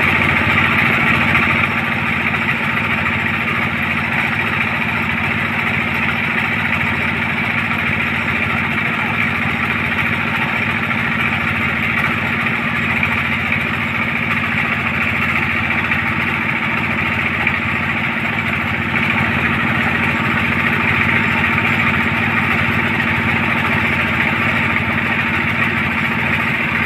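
Engine of a borehole drilling rig running steadily.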